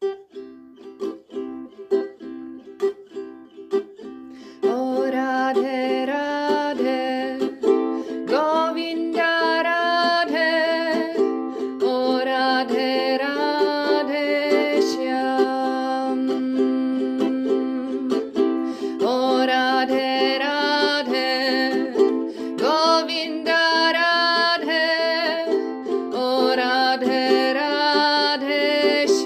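Meditative music: gentle plucked strings over a steady low drone. About five seconds in, a louder melody with sliding, wavering notes joins in and carries on.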